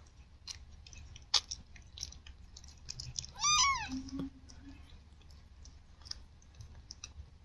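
A newborn kitten gives one short, high mew that rises and falls, about three and a half seconds in. Around it are small wet clicks of the mother Siamese cat licking and chewing at her newborn kittens.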